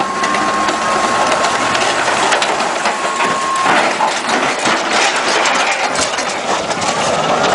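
Tracked armoured vehicle clattering and grinding on a steel lowboy trailer as it slides off the ramp and rolls over: dense metallic clanking of the tracks and hull. A steady whine underneath stops a little past halfway.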